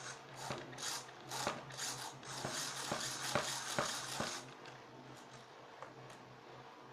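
Small hard objects being handled: an irregular run of clicks, taps and scraping that is densest in the middle and thins out after about four and a half seconds, over a steady low hum.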